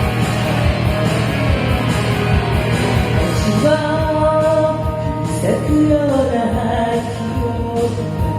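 Loud rock-style music with a steady beat. From about three and a half seconds a held sung line comes in over it, sliding down in pitch a little after six seconds.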